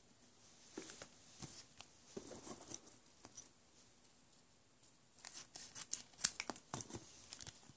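Scissors cutting open a Pokémon POP Series 5 booster pack, the wrapper crinkling as it is held: a quick run of sharp snips and crackles starting about five seconds in, after a few faint taps of cards being set down.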